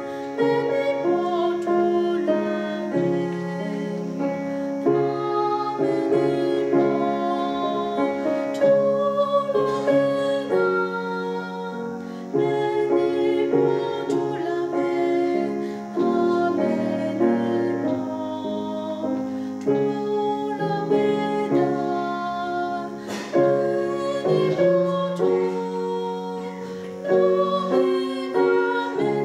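A woman singing a hymn solo, accompanied by a grand piano; her held notes waver with vibrato.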